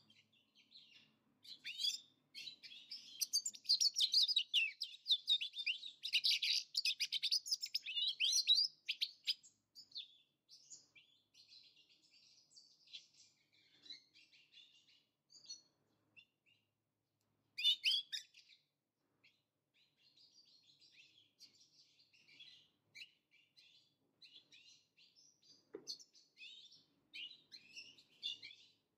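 European goldfinches twittering and singing: several seconds of loud, rapid tinkling song, then quieter, scattered twitters, broken by a short loud flurry about two-thirds of the way through.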